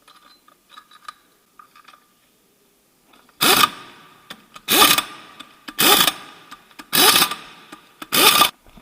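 Wrench tightening a car's wheel bolts to 110 N·m in a star pattern: a few light tool clicks, then five short, loud bursts about a second apart, one for each bolt.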